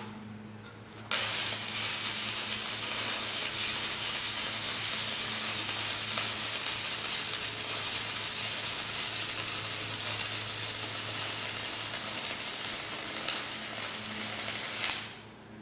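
Battery-powered stick-welding arc on a 3/32 stainless steel rod: a steady, loud hiss that strikes abruptly about a second in and breaks off near the end.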